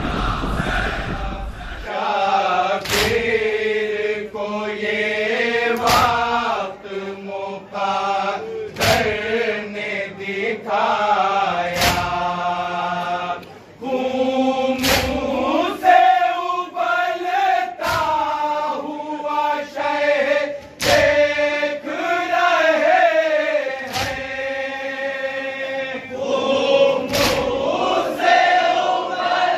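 A group of men chanting a Shia noha (mourning lament) together. Sharp, unison strikes land about every three seconds, the rhythm of matam (chest-beating) keeping time with the chant. The chanting begins about two seconds in.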